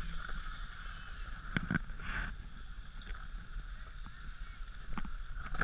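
Skis sliding over packed snow: a steady scraping hiss over low wind rumble on the camera microphone, with a few short clicks and knocks.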